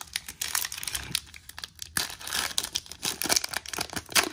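Foil wrapper of a Donruss basketball trading-card pack being torn open and crinkled by hand: an irregular run of sharp crackles and rustles.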